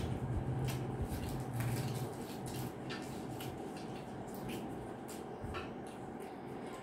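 Two people eating egg rolls: chewing and wet mouth clicks, with small crackles scattered irregularly throughout. A low steady hum runs under the first two seconds.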